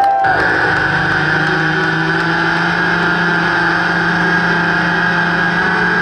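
Synthesizer drone from a live electronic set: a dense, steady drone that starts abruptly just after the beginning and holds level, with a low hum under a brighter band of tones.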